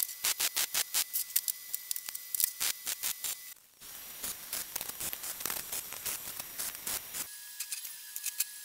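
Crackle of arc welding on steel caster brackets: rapid, irregular clicks over a hiss, breaking off briefly about three and a half seconds in and fading near the end.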